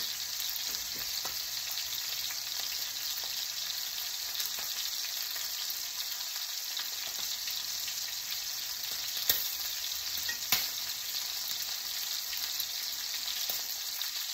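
Steak frying in hot oil in a pan: a steady sizzle, with a couple of sharp pops of spattering oil past the middle.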